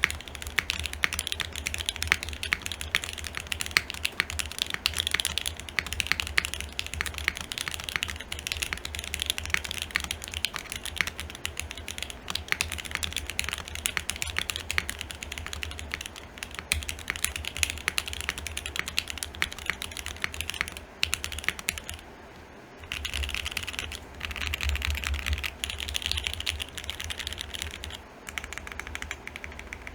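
Continuous fast typing on a custom Unikorn R2.1 mechanical keyboard with lubed Alpaca linear switches, FR4 plate and GMK keycaps: a dense run of keystroke clicks, with a short pause about 22 seconds in.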